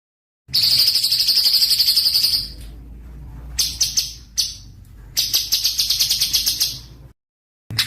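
Small songbird's rapid chattering song, a fast run of high notes at about ten a second, coming in three spells with quieter stretches between. The song starts after a short moment of dead silence and breaks off into dead silence near the end.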